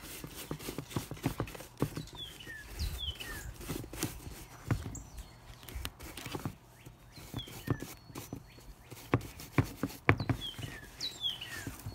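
Horsehair brush scrubbing a leather hiking boot in quick, irregular strokes, the bristles scratching and knocking against it as dirt and grass are brushed out. A bird chirps with short falling notes four times.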